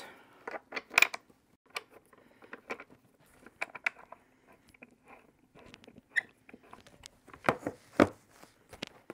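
Scattered small clicks, taps and rustles of an office chair armrest being handled against the padded seat and its bolt turned with an Allen key. The sharpest knocks come about a second in and again near the end.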